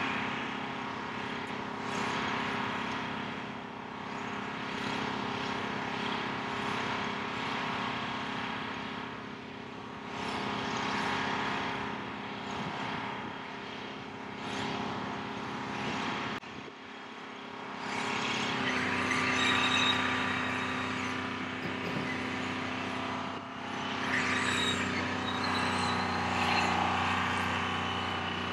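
Heavy construction equipment's diesel engine running steadily. A little past halfway its note deepens and gets louder.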